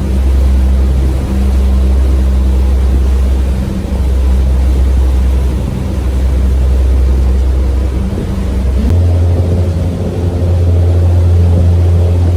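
Tour boat's engine droning steadily with a low hum; about nine seconds in, the hum steps up to a slightly higher pitch.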